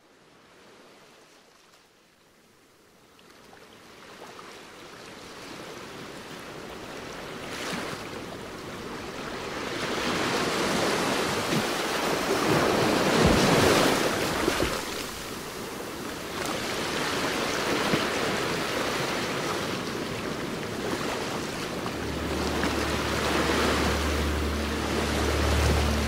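Rushing noise of wind and ocean surf, building over the first several seconds and then swelling and ebbing. A low, steady hum comes in near the end.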